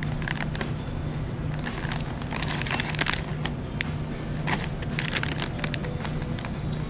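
Plastic snack pouches of Emerald Deluxe Mixed Nuts crinkling as they are handled and shuffled in a bin, in irregular rustles, loudest about two to three seconds in. A steady low hum runs underneath.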